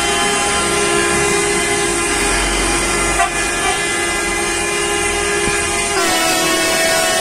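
Several coach horns held down together in a long, steady blare as a line of coaches drives slowly past, over the low rumble of their engines. The chord of horns shifts in pitch about six seconds in.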